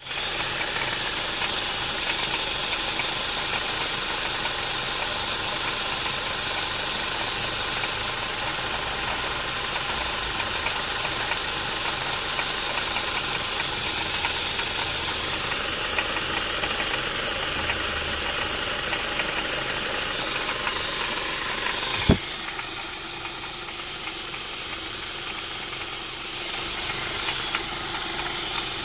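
Ford Duratec HE four-cylinder petrol engine idling with an intermittent rattle from around the pulleys, which the owner finds more prominent when the engine is hot and does not trace to the exhaust. A single sharp knock comes about 22 seconds in, after which the sound is quieter.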